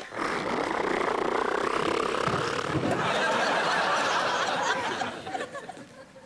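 Studio audience laughing, starting abruptly, holding steady and dying away about five seconds in.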